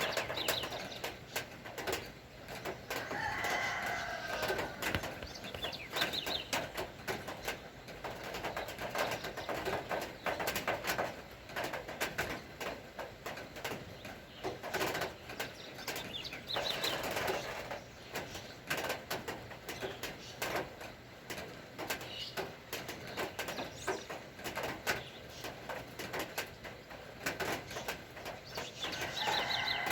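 Steady rain, with a dense patter of drops. A bird calls three times over it, each call lasting about a second and coming roughly every thirteen seconds.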